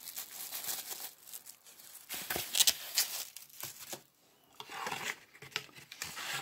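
Crinkling and rustling of plastic wrapping and packaging around a clear silicone phone case, in irregular bursts with a short pause about four seconds in. Near the end it turns to cardboard being handled as the box's card insert is opened.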